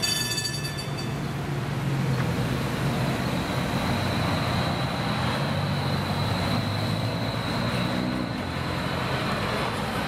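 Electric streetcar moving through street traffic beside an idling diesel coach bus: a steady low engine rumble, and from about three seconds in a steady high-pitched whine from the streetcar. A ringing tone fades out in the first second.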